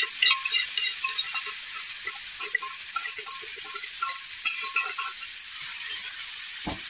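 Hot coconut oil sizzling and crackling steadily in a pan with popped mustard seeds and crushed chilli, while the pan is stirred.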